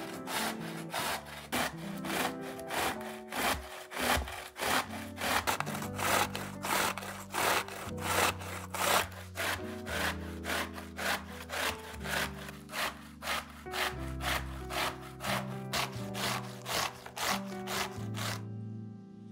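Zucchini being grated on a stainless steel box grater: evenly repeated rasping strokes, about two a second, that stop just before the end. Soft background music runs underneath.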